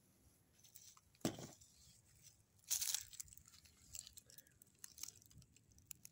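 Dry palm fronds and leaf litter crunching and crackling. There is a dull crunch about a second in, a louder rustling crackle near three seconds, then scattered light crackles.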